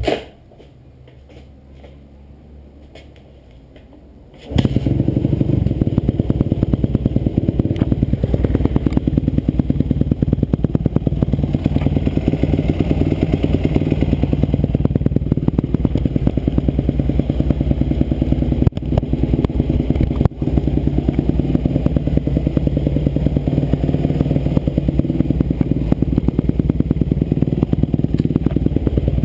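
2007 Kawasaki KX250F four-stroke single-cylinder motocross engine running. It comes in suddenly about four and a half seconds in, then runs steadily and loudly with a fast, even pulse.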